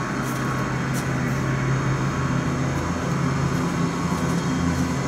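Steady city street traffic: cars passing on the road, with a low engine hum underneath.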